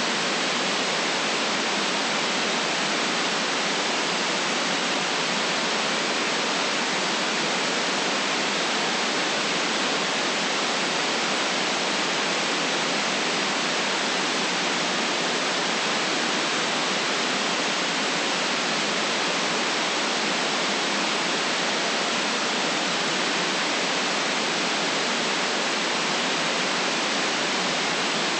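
Steady white noise for sleep: an even, unchanging hiss with no deep rumble and no highest treble.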